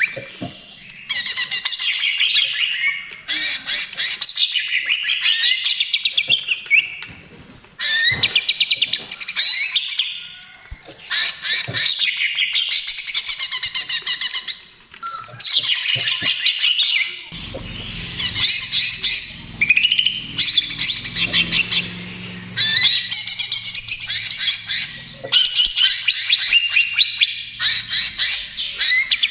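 Cucak ijo (green leafbird) singing in full voice, an unbroken run of loud phrases of rapid, harsh chattering and whistled notes, each about a second long with short pauses between.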